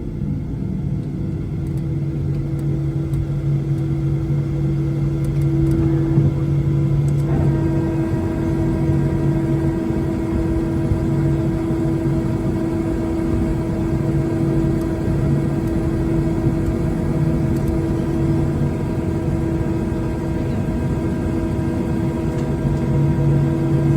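Boeing 737 MAX 8 jet cabin noise: the CFM LEAP-1B engines and airflow make a steady loud rumble with humming tones. About seven seconds in, a set of higher steady tones joins and holds.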